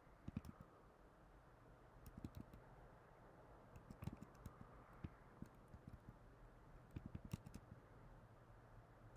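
Computer keyboard keys tapped in short clusters of a few quick presses, every second or two, over a faint low hum.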